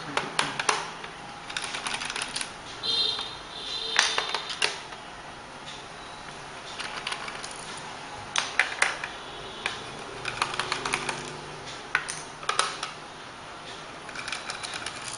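Screwdriver work on a laptop's base: irregular small clicks and ticks in clusters as screws are turned out and set down, with a brief metallic ping about three to four seconds in.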